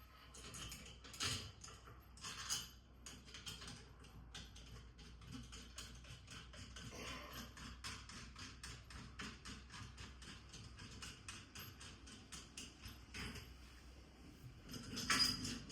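Small faucet mounting hardware being handled and threaded onto the bolt: faint, rapid clicks and light ticks of metal parts.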